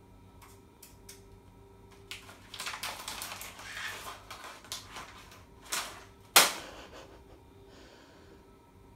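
Plastic crisp packet crinkling and crackling as a Moluccan red lorikeet works at it with its beak, a dense run of rustling clicks followed by two sharp cracks, the second the loudest.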